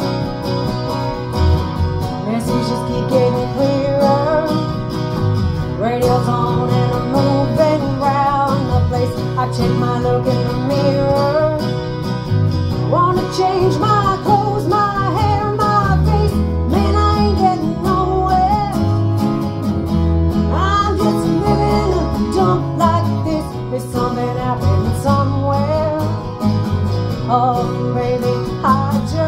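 Acoustic guitar strummed in a steady rhythm while a woman sings the melody.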